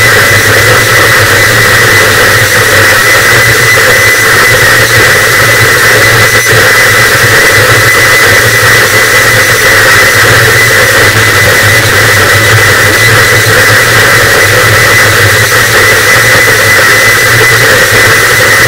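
Harsh noise wall: a dense wall of distorted static, very loud and unchanging, with a low rumble under a harsh hiss.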